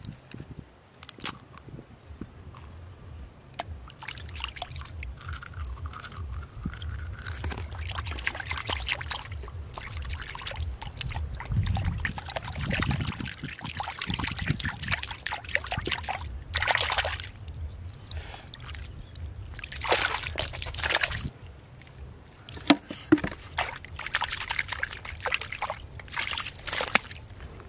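A hand sloshing and scooping muddy water in a small hole in wet mud, with splashes and squelches in irregular bursts over a low steady rumble.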